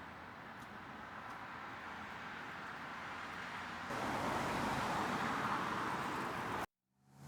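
Road traffic noise, a steady hiss of passing cars that grows louder, then cuts off abruptly near the end.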